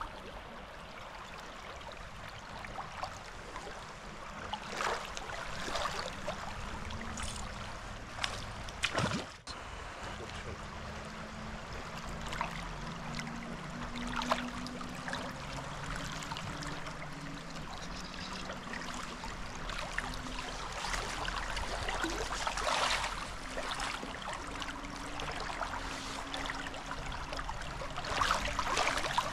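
Shallow, fast river water flowing and gurgling around a wading angler, with irregular louder splashes and gurgles.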